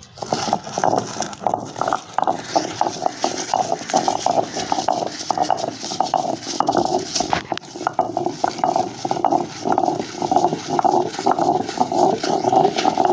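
Stone pestle grinding roasted chana dal, coriander seeds and garlic in a heavy stone mortar: continuous rapid crunching and scraping of stone on stone as the dry grains are crushed.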